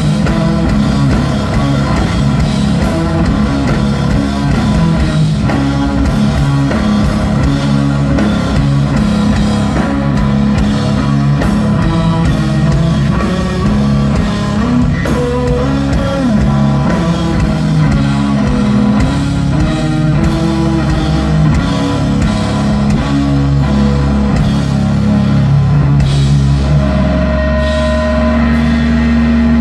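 Live rock trio playing: electric guitar and bass guitar riffing over a full drum kit, with no vocals. In the last few seconds the instruments settle into long held notes.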